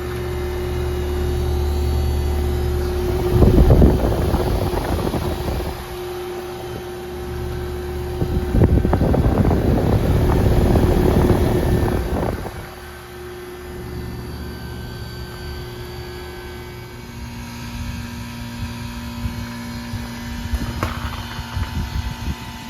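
Carrier WeatherMate 38YCC heat pump outdoor units running through a defrost cycle: a steady machine hum with a held tone, broken by two loud rushing surges of a few seconds each. Afterwards the hum is quieter and settles to a lower tone, with light crackles and a sharp click near the end.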